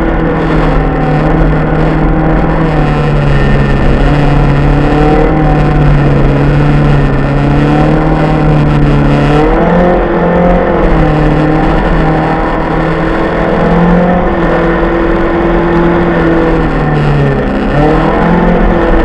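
BMW 318i rally car's four-cylinder engine running hard at high revs, heard from inside the cabin. The engine note wavers up and down and drops briefly twice, about halfway through and near the end, before climbing again. Steady road noise from the tyres runs underneath.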